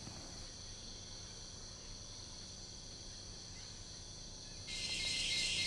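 A faint, steady chorus of high-pitched insect trills from the tropical forest. Near the end, a much louder insect drone cuts in suddenly.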